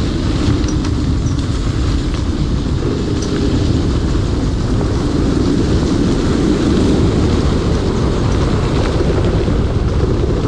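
Steady loud rush of wind on the microphone and tyre rumble over a dirt trail while riding a 72-volt electric motorcycle, with a few faint ticks.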